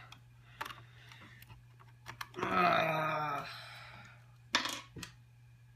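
Small clicks and taps of a screwdriver working the screws that hold a Mac Mini G4's CPU fan. A short wordless vocal sound comes about midway, and a sharp click near the end.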